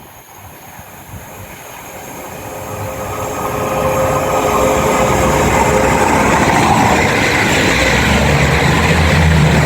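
East Midlands Railway Class 222 Meridian diesel multiple unit passing through the station at speed. It grows louder over the first four seconds as it approaches, then holds a steady, loud rush of wheels on rail and underfloor diesel engines.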